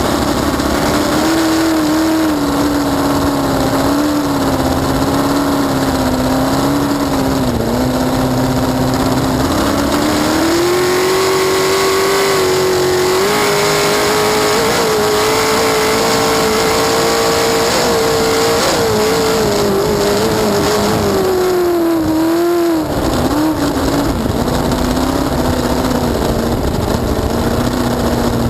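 Cracker box race boat's inboard engine running hard at speed, heard from aboard. It climbs in pitch about a third of the way in, holds high for several seconds, then drops back near the end as the throttle eases.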